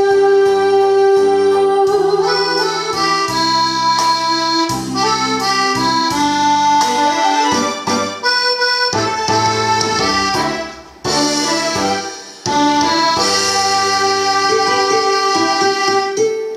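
Instrumental music with no singing: the closing bars of a song's backing track, a held melody over sustained chords. It ends on a long held note.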